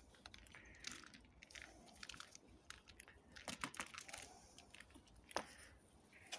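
Faint scattered clicks and scuffles of ferrets tussling on bare dirt, with a few sharper clicks about three and a half and five seconds in.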